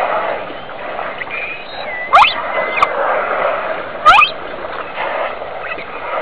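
Water splashing around a pod of dolphins in shallow water, with short, sharply rising squealing calls twice, about two seconds in and again about four seconds in.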